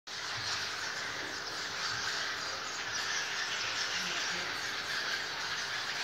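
Many swiftlets chirping and twittering together in a dense, steady high-pitched chorus.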